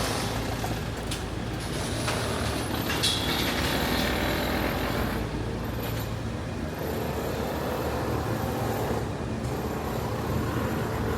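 Steady road traffic noise on a busy city street: an unbroken wash of passing buses and cars.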